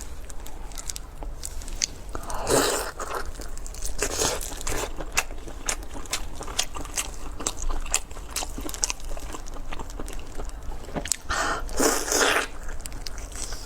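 Close-miked eating: crunchy bites and chewing, full of small sharp clicks, with louder crunching bites about two and a half seconds in and again around twelve seconds in.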